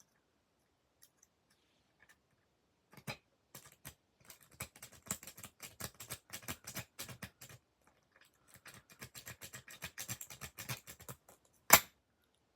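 A rake pick being worked in and out of a pin-tumbler lock under tension, giving two runs of rapid small metallic clicks as it bounces the pins. Near the end comes one much louder click, typical of the lock's plug turning as it opens.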